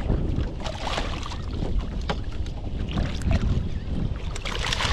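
Wind rumbling on the microphone over water lapping at the boat, with a few brief splashes from a hooked striped bass being led alongside the hull.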